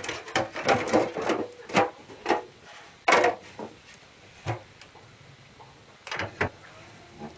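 A string of knocks and clatters from things being handled at a cast-iron Ulabrand wood stove. There is one sharp knock about three seconds in, then a few metallic knocks near the end as a hand works the stove door's handle.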